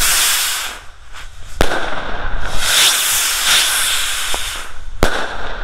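Weco 'Viel Glück' skyrockets fired together: rushing launch hisses, and two sharp bangs of the rockets bursting overhead, about a second and a half in and again near the end.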